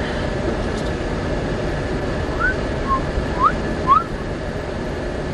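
Steady road and engine noise inside a moving car. Around the middle come four short whistle-like chirps, most of them rising in pitch.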